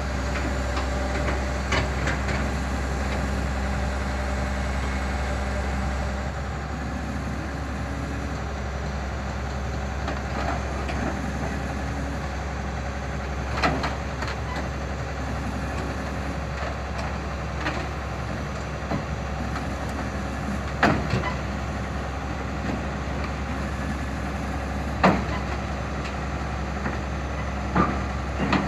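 Tracked excavator's diesel engine running steadily, dropping to a slightly lower note about six seconds in, with a few sharp metal clanks of the trailer's steel loading ramps being lowered.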